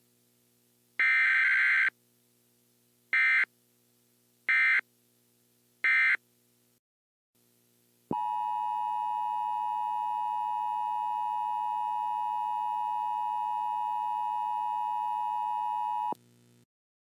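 Emergency Alert System header: a one-second burst of screeching digital data tones, then three short bursts, followed by the two-tone attention signal, a steady tone held for about eight seconds that cuts off suddenly.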